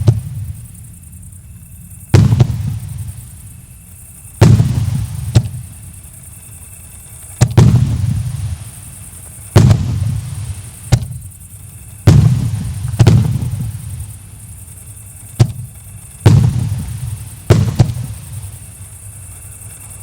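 "General Moroz" JF C50-60/01 firework cake firing: about a dozen sharp bangs at irregular intervals of one to two seconds, each trailing off in a low rumble.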